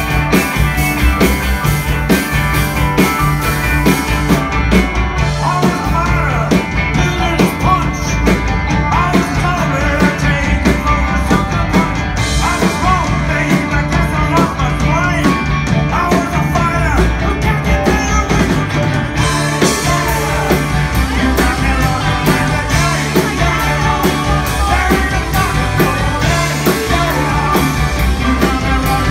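Live rock band playing at full volume, with electric guitars, bass guitar, drums and keyboard, over a steady beat.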